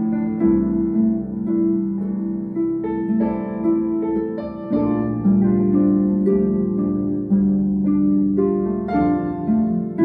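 Concert harp playing a flowing run of plucked notes, each ringing on as the next is struck.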